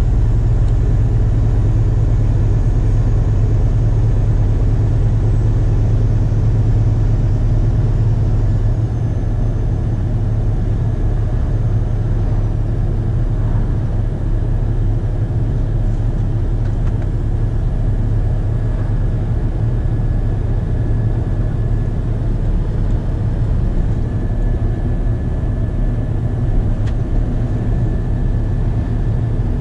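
Scania truck's diesel engine running at cruising speed as heard inside the cab: a steady low drone mixed with road noise, easing off slightly about eight or nine seconds in.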